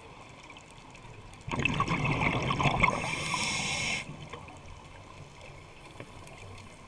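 Scuba breathing through a regulator, heard underwater: a loud burst of bubbling and hissing starts about a second and a half in and cuts off sharply about four seconds in. Before and after it there is a faint underwater hiss with small scattered clicks.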